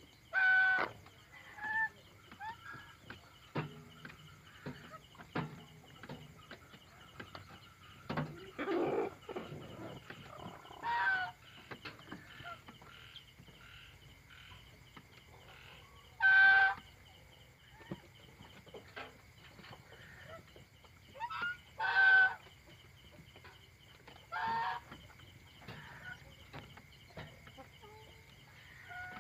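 Domestic chickens on their night roost giving short, pitched calls every few seconds, with a lower, longer call about nine seconds in and small clicks of movement in between.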